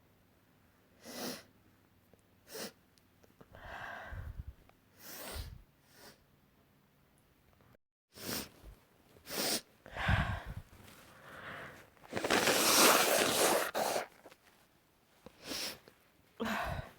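A person sneezing over and over: a run of short sneezes and sharp breaths, about ten in all. The loudest and longest comes about twelve seconds in and lasts nearly two seconds.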